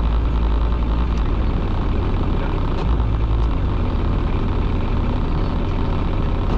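Small fishing boat's inboard engine running steadily under way, a loud, even low note with a wash of noise above it.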